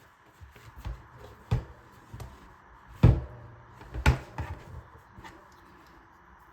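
Magnets of a magnetic embroidery hoop snapping and knocking into place on the hoop frame as it is clamped: about seven sharp clicks and knocks, the loudest about three and four seconds in.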